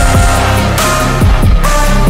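Background music: an electronic track with heavy bass, held synth notes and a steady beat, with no vocals.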